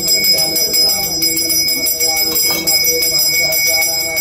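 Puja bell rung rapidly and without a break for the harathi, its ringing held as steady high tones, over a voice chanting.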